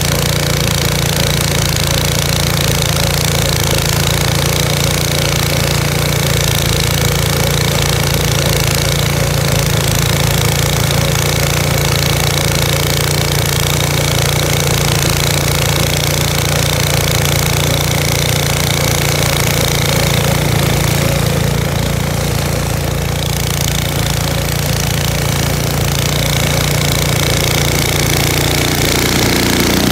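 Gas snow blower engine running steadily at a constant speed, with a thin steady whine above it, as the machine is pushed through snow.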